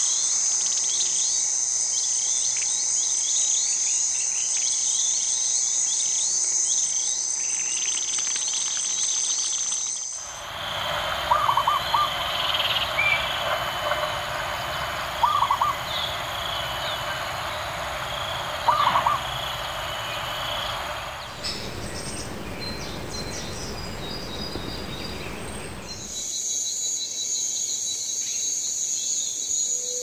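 Wild nature ambience in three sections. First a steady high insect drone with many short bird chirps. Then, over a soft hiss, a dove's cooing call sounds three times about four seconds apart, the loudest sounds here. The high insect drone with chirps comes back near the end.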